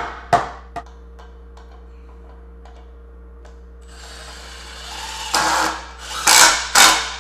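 A mallet knocks a wooden rack arm into its glued hole, two more strikes in the first second, the last one faint. After a quiet spell a rough scraping noise builds, with three loud bursts near the end.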